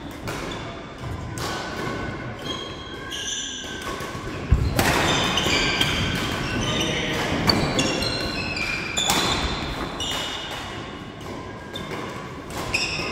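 Badminton doubles rally in a large sports hall: sharp racket strikes on the shuttlecock, footfalls, and short high squeaks of shoes on the wooden court floor, with one loud thump about four and a half seconds in.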